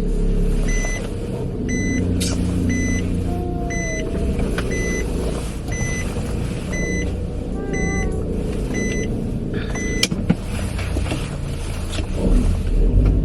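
Car's warning chime beeping in an even series, about one and a half beeps a second, over the low hum of the engine and road noise inside the cabin. The beeping stops about ten seconds in.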